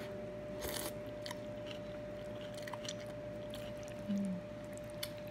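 Close-up chewing and mouth noises of a person eating noodle soup, with small scattered clicks and a brief crackly burst just under a second in. A short hummed "mm" about four seconds in, over a faint steady background hum.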